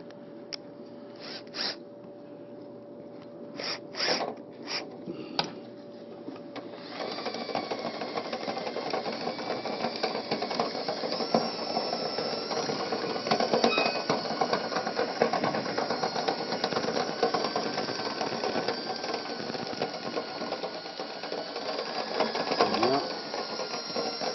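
A few knocks, then about seven seconds in a drill starts spinning a rotary dryer-vent brush on rods inside the vent duct: a steady motor whine with the brush rattling and scraping against the duct.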